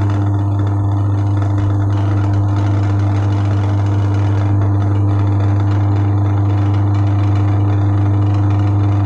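Single-phase capacitor-run washing-machine wash motor, out of the machine and running unloaded, switching on at once and running with a loud, steady mains hum. It is being driven by the wash timer on the reversing (two-way) wash setting.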